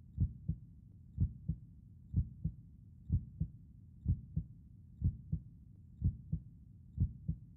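Human heartbeat, slow and steady: eight lub-dub pairs of low thuds, a little under one a second, over a faint steady low background.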